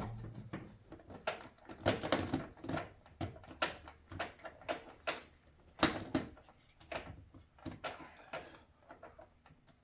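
Irregular plastic clicks, knocks and scrapes as an air filter is pushed and worked into its plastic air box. The filter will not seat because it is turned the wrong way round. The sharpest knocks come about 2 and 6 seconds in.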